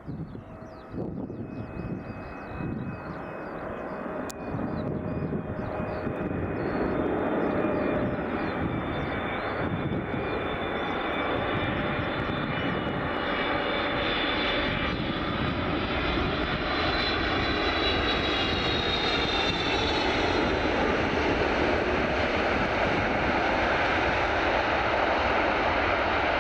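An arriving Boeing 777's jet engines growing steadily louder as the airliner comes in, with a high whine that falls in pitch about two-thirds of the way through, then a loud, even rush of engine noise.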